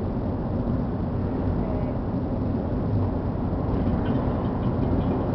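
Steady road and engine noise heard inside the cabin of a car driving along a highway.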